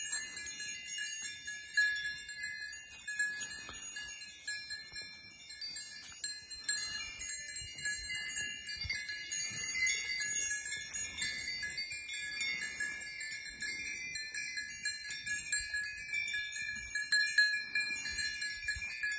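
Several small bells on a grazing goat herd jingling and ringing without pause, many tones overlapping.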